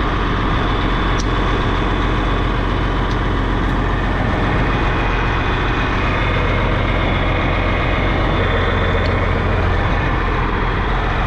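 Tractor engine running steadily at idle, with a few faint clicks over it.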